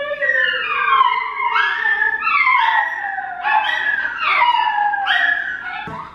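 A woman howling in long, wavering wails to rile up Italian greyhounds, with the dogs howling along. Several howls overlap, each sliding down in pitch, one after another.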